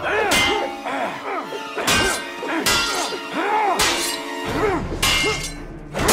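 Fight sound effects: a run of about five hard hits and metallic clangs, each followed by a ringing swish, with background music under them.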